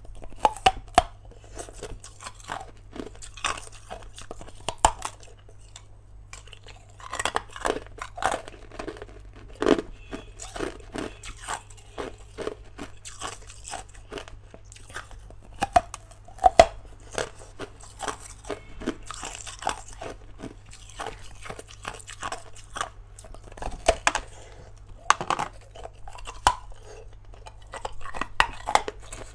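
Hard ice being bitten off a block and crunched between the teeth, close up: a run of sharp, irregular cracks and crunches with short pauses, over a faint steady low hum.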